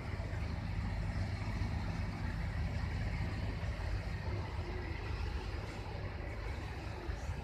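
Steady low rumble of a Ro-Ro passenger ferry underway at sea, heard out on its open foredeck.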